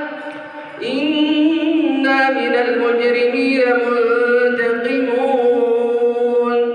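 Melodic Quran recitation: one voice drawing out long, held notes, with a new phrase starting about a second in.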